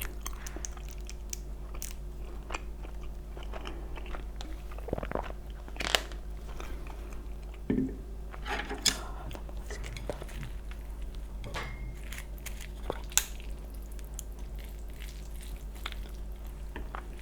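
Close-miked eating: scattered bites, crunches and chewing of food, with a faint steady hum underneath.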